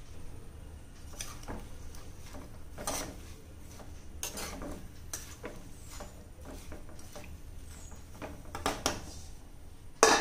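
A steel spoon stirs and scrapes chopped raw papaya and onion in a pot, making scattered clinks and scrapes. Near the end there is a loud clang as a stainless steel lid is set down on the pot.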